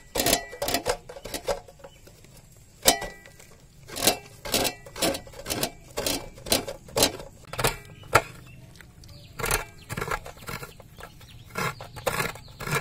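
Coconut flesh scraped out of a half shell against the serrated tip of a curved iron hand coconut scraper (kuruni). It goes in short rasping strokes, about two a second, with a few brief pauses.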